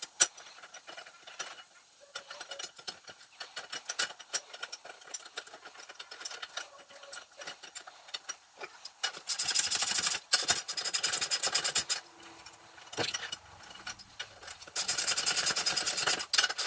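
Hand ratchet clicking rapidly as it runs down the 7/16 bolt of a valve spring compressor on a cylinder head. The ratcheting comes in two spells of a few seconds each, one about halfway through and one near the end. Before them there are light clinks of metal parts being fitted by hand.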